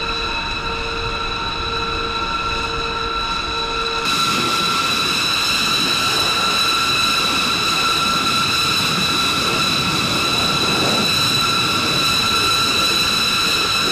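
Jet turbine whine from aircraft on a flight line: a steady, loud rush with several high whining tones. For the first four seconds a low beep repeats about every second, then it cuts to a louder, rougher whine.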